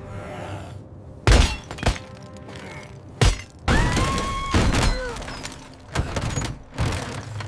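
Sound effects of a jammed toy-helicopter cabin being forced open: several sharp bangs and breaking crashes, then a high screeching tone that rises and holds for about a second, followed by more knocks and clatter, over background music.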